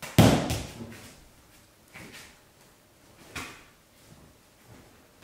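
A loud thud about a quarter second in, then three softer slaps of juggling balls landing in the hand, a little over a second apart.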